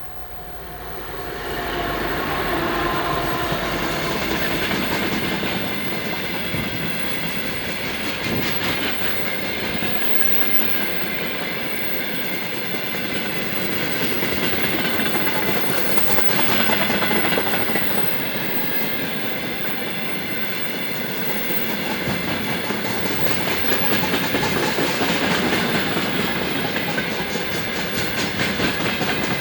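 Freight train of tank wagons rolling past at about 50 km/h, wheels clicking steadily over rail joints. The sound jumps up sharply a second or two in, then stays loud.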